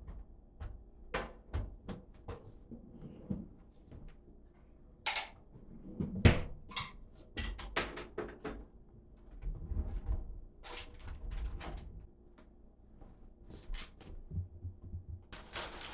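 Household clatter: a string of irregular knocks, clicks and clinks, like cupboard doors and dishes being handled, the loudest knock about six seconds in.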